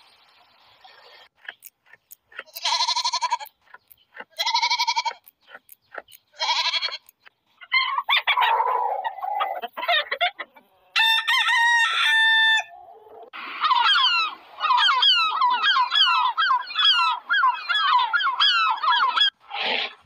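Chickens: a rooster crows once about eleven seconds in, then hens cluck in a quick run of short calls for several seconds. Earlier come a few separate short pitched calls.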